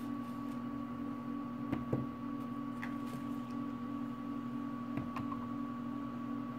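A steady room hum with a faint high tone over it, and a few soft clicks and taps about two seconds in and again around five seconds.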